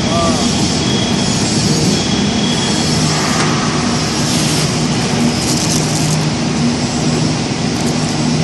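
Steady, loud machinery noise with a constant low hum running under it.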